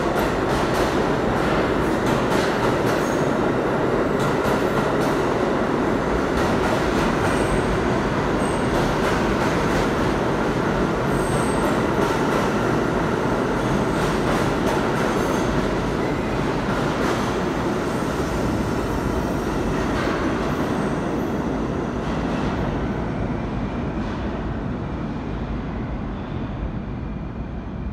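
A train of R32 subway cars runs past the platform with a loud, steady rolling rumble and a few short, high wheel squeals. The sound fades away over the last few seconds as the last cars leave.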